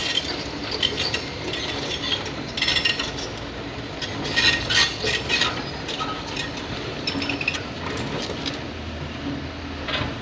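Kobelco 220 hydraulic excavator working a slope cut: its engine runs with a steady rumble under repeated metallic clanks and scrapes, loudest around the middle.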